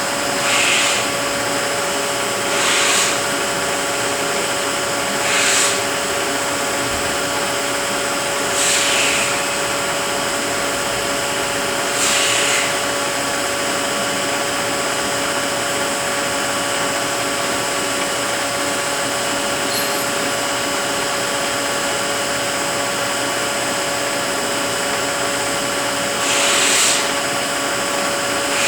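Rebuilt Eaton Fuller FRO-16210C ten-speed truck transmission running on a test dyno: a steady gear whine with a constant tone. Short hissing bursts come every few seconds at first, once more about midway, and again near the end.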